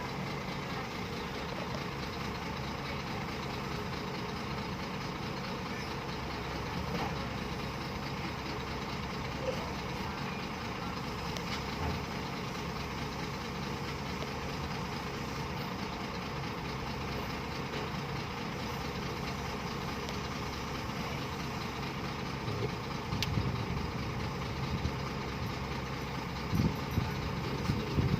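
Heavy diesel engine idling steadily, from the backhoe or the truck carrying it, with a few short louder sounds near the end.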